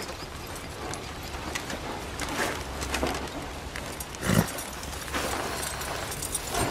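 Horse walking over leaf-covered forest ground: soft, irregular hoof falls and rustling, with one louder thump about four seconds in.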